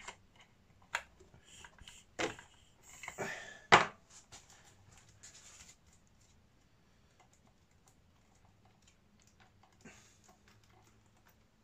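Scattered clicks and knocks of hard plastic parts handled as a large tyre and wheel is fitted onto an RC truggy's hub, the loudest knock a little under four seconds in, then only faint ticks.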